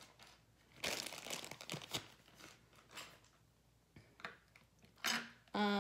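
Makeup items being handled: a short crinkling rustle about a second in, then a few light clicks and taps.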